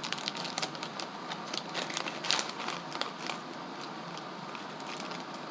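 Plastic wrapper of a Ppushu Ppushu crushed-noodle snack crinkling and crackling as it is handled, a dense run of small crackles that thins out after about three and a half seconds.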